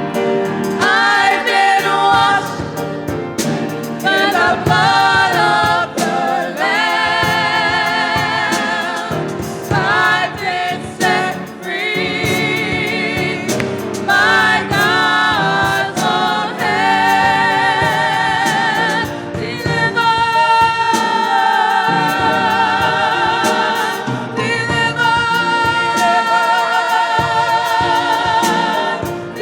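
Gospel choir singing a slow song, mostly long held notes with a strong vibrato.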